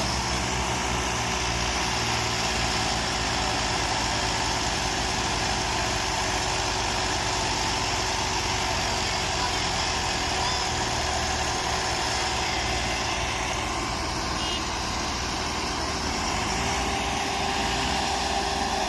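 Several diesel tractor engines, Massey Ferguson and Fiat, running steadily under load as tractors hitched in a chain haul a heavily loaded sugarcane trolley through soft ploughed soil.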